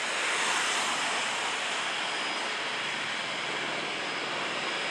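Helibras AS350 B2 Écureuil helicopter in flight on approach, its single turboshaft engine and rotors making a steady noise that swells to its loudest about half a second in.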